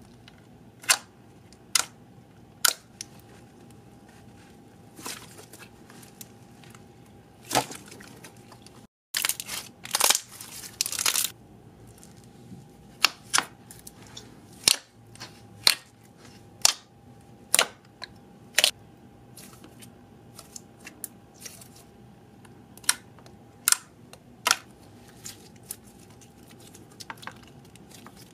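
Slime being squeezed, poked and stretched by hand, giving scattered sharp pops and clicks as trapped air pockets burst. It breaks off for a moment about nine seconds in, then comes a denser run of crackling as fingers dig into a thick, glossy white slime.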